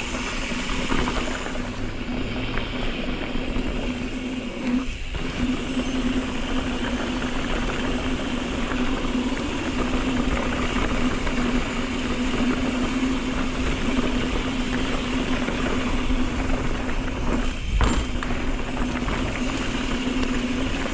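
Mountain bike riding along a dirt fire road: tyres rumbling over the dirt and wind noise on the camera microphone, with a steady hum that drops out briefly twice.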